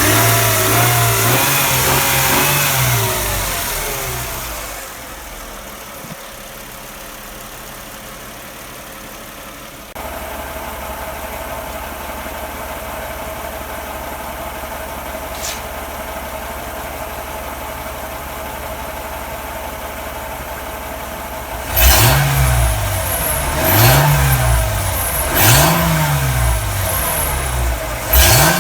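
Mercedes-Benz CLK320 (W208) 3.2-litre V6 running: the engine speed drops back from a rev, settles into a steady idle, then is blipped four times in quick succession near the end. The owner suspects a noise from the catalytic converter.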